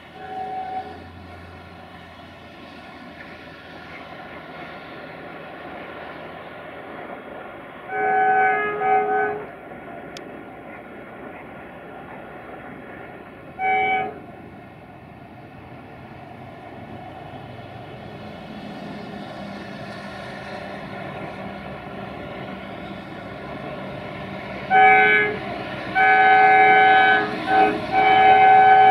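Romanian 060-DA (LDE2100) diesel-electric locomotive with its Sulzer six-cylinder diesel, approaching with a freight train and sounding its horn several times: short blasts early on and in the middle, then longer, louder blasts near the end. The engine and wagon rumble grows louder as the train comes closer.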